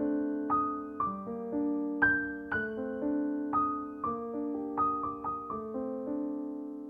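Background piano music: gentle single notes and chords struck about twice a second, each ringing and fading away.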